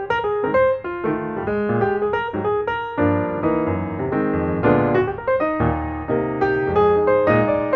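Background piano music: a steady stream of quick notes and chords, each note struck and fading.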